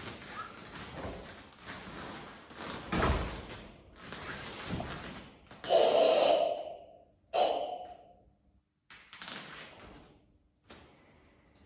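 A karateka's forceful, audible breathing through the slow tension movements of the kata Seienchin: a run of drawn breaths and exhales, the loudest two harsh, forceful exhales about six and seven and a half seconds in. A dull thump comes about three seconds in.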